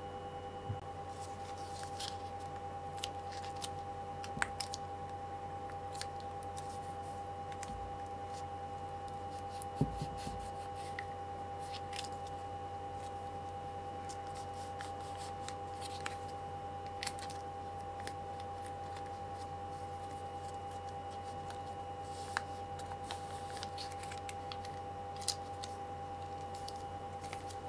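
Scattered light crinkles and clicks of plastic dog-treat stick pouches being handled and squeezed out, the loudest about ten seconds in, over a steady hum.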